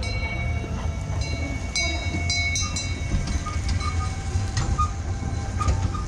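Steady low rumble of a running vehicle, with high squealing tones over it, strongest about two to three seconds in.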